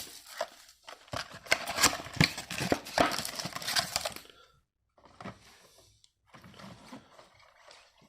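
Foil booster-pack wrapper crinkling and being torn open, a dense run of crackles and snaps for about four seconds, then fainter rustling of the wrapper and cards.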